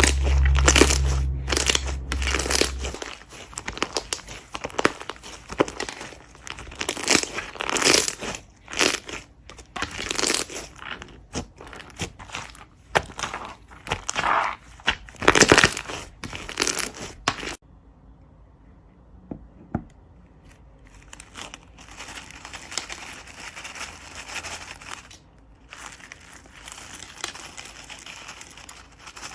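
Hands pressing, stretching and squishing slime: a rapid, uneven series of sticky pops and crackles, with a deep rumble in the first few seconds. Past the middle it changes suddenly to a softer, fine, steady crackling.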